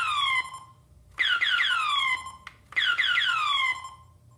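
Electronic laser sound effects from Worlds of Wonder Lazer Tag gear. Each burst is a quick run of about four falling zaps ending in a short held beep. The bursts repeat roughly every second and a half: the tail of one at the start, then two more.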